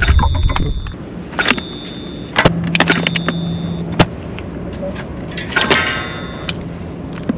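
An edited counting sound effect: a sharp click followed by a short bright ding, repeated about every one and a half seconds as the catch tally goes up. A dull handling thump opens it.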